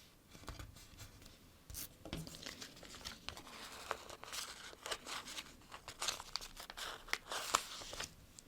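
Stickers being peeled off their backing sheet and the paper sheets handled: dense, irregular crackling and tearing sounds that stop just before the end.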